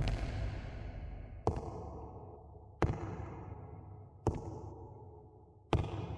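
Slow footsteps on a hard floor: five sharp steps about a second and a half apart, over a fading tail of the music before.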